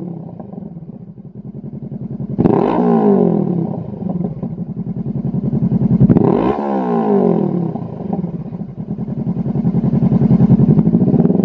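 Honda CB500F's 471 cc parallel-twin engine running through a Lextek MP4 aftermarket silencer, revved with the bike standing still. It idles, is blipped sharply twice, about two and a half and six seconds in, each time the revs falling slowly back, then over the last few seconds the revs climb more gradually.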